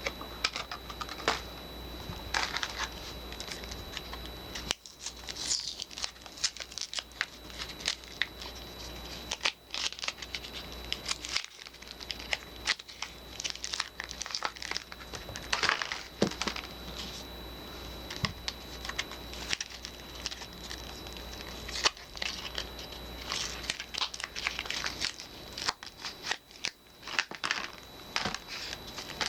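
Soap packaging being unwrapped by hand: wrapping crinkling and tearing in quick, irregular crackles, with sharper clicks and rustles throughout.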